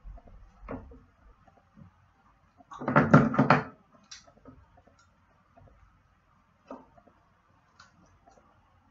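Kitchen utensils handled on a worktop: a knock under a second in, a short dense clatter of several quick knocks about three seconds in, then scattered light taps and clicks.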